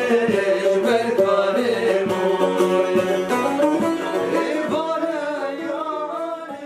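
Two men singing a Kurdish folk song, accompanied by a plucked banjo and a long-necked saz (bağlama). The music gradually fades out over the last couple of seconds.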